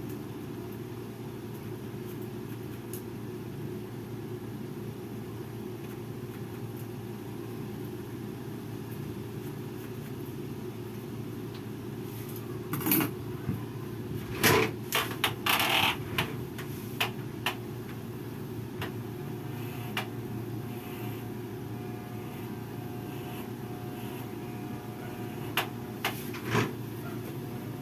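Steady hum of a room air conditioner, with a cluster of short clicks and taps about halfway through and a few more near the end.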